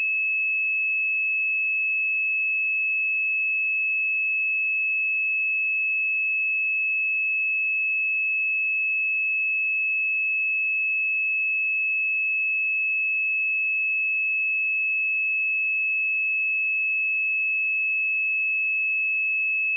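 A steady, unbroken 2594 Hz sine-wave test tone: a single pure high-pitched note at constant loudness, used to check speakers and headphones.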